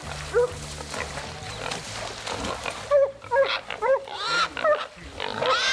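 Wild hog squealing in short, repeated cries that come more often and louder from about three seconds in: a hog caught and held by the catch dogs.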